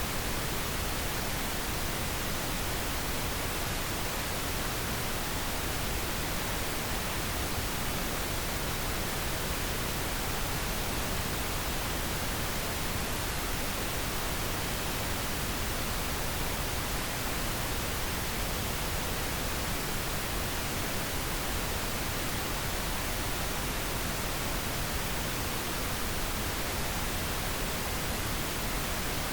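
Steady pink noise: an even, unchanging hiss spread across all pitches, generated as a sleep aid.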